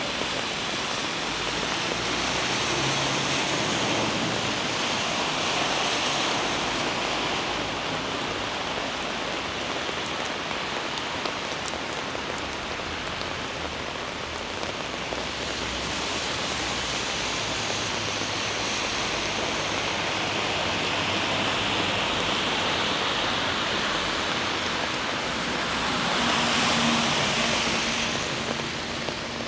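Heavy rain falling on a city street, a steady hiss that swells and eases a few times.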